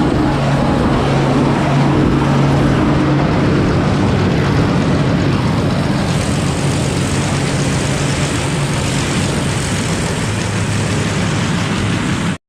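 Combine harvester running under load while shelling corn: a steady engine drone with a continuous rush of threshing machinery. The sound drops out suddenly for a moment right at the end.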